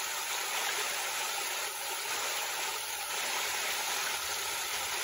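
Shallow creek water running over rocks and small cascades, a steady rushing.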